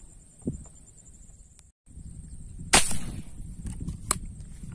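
A tiksay (rubber-powered fish-shooting spear) being fired: one loud sharp snap a little under three seconds in, then a fainter click over a second later.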